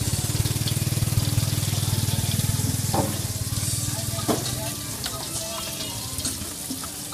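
Hot oil sizzling and bubbling steadily as food deep-fries in a large pot. A low hum runs under it for the first four seconds or so and then fades, and there are two light knocks partway through.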